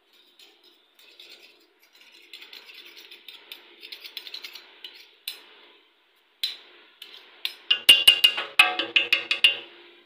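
A metal spoon scraping thick homemade khoya from the inside of a large aluminium pot, then being wiped against a knife. Near the end comes a run of loud, ringing metal clinks against the pot.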